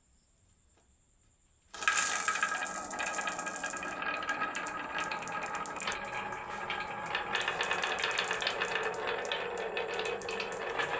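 Many marbles clattering and rattling down a wooden HABA marble run track, starting suddenly about two seconds in as a dense run of quick clicks.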